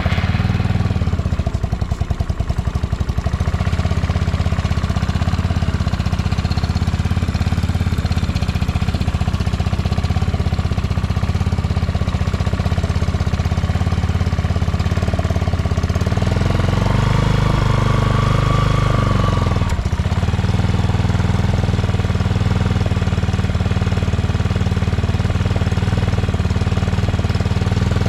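Yamaha Majesty 250C scooter's single-cylinder four-stroke engine idling just after starting. About 16 seconds in it is revved once, the pitch rising and falling back over a few seconds, then it settles back to idle. The seller describes it as free of abnormal noises.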